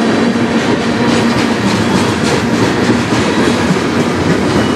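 Freight train of tank cars and covered coil cars rolling past, a steady rumble of steel wheels on rail with scattered clicks as the wheels cross rail joints.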